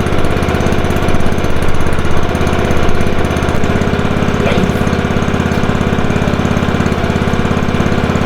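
Small single-cylinder engine of an Arctic Cat ZR 120 kids' snowmobile running steadily just after a carburetor reinstall and pull start, with a few brief rises in level about one to three seconds in.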